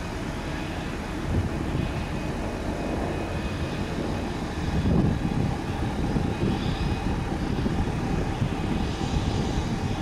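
Wind rumbling and gusting on the microphone, with a faint steady whine of distant aircraft engines behind it. The wind swells about five seconds in.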